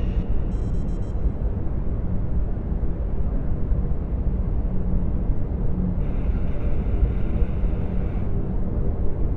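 Sci-fi starship sound design: the steady deep rumble of a Venator-class star destroyer travelling through hyperspace, heard from its bridge. A brief run of faint high electronic bleeps comes about a second in, and a faint higher hiss rises over the rumble for about two seconds near the end.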